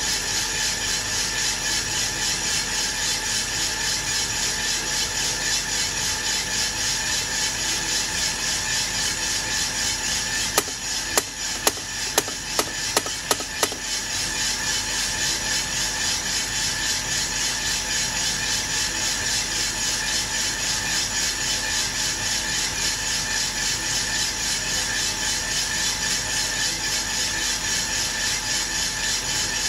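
Aillio Bullet R1 V2 coffee roaster running mid-roast, well before first crack: the rotating drum and tumbling beans make a steady, fast rattle. About ten seconds in comes a quick series of about eight sharp clicks from its control panel as the power and fan settings are raised.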